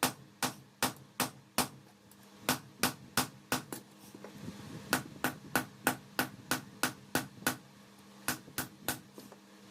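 Hand hammer striking hot steel on an anvil in forging a khukuri blade from bicycle pedal steel: steady blows about two and a half a second, in runs with three short pauses.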